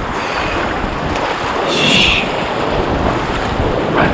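Wind buffeting the microphone over choppy sea, with waves and water washing around an inflatable kayak. A brief higher sound stands out about two seconds in.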